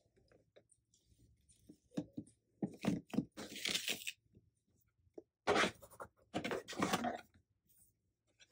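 Unboxing a cardboard gift box: paper and cardboard rustling and scraping in several short bursts as a ribbon is slid off and the lid lifted, with the longest and loudest stretch of handling a little past halfway.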